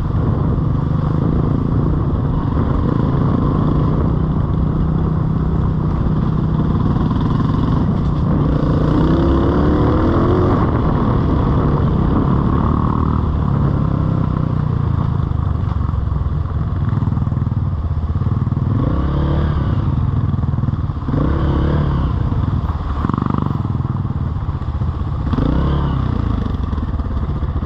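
An off-road vehicle's engine running steadily while riding trail, revved up and down repeatedly, several times in quick succession in the second half.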